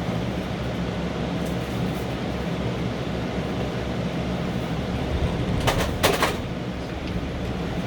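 Small airbrush air compressor running steadily with a low motor hum. Two brief sharp sounds come about six seconds in.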